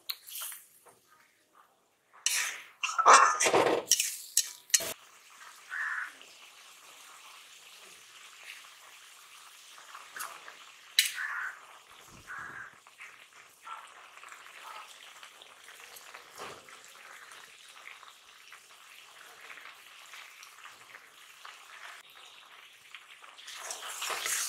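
Metal spatula stirring and scraping a snail and ridge gourd curry in a wok, in a run of sharp scrapes a couple of seconds in. The curry then simmers with a soft, steady sizzle and an occasional pop, and the scraping starts again near the end.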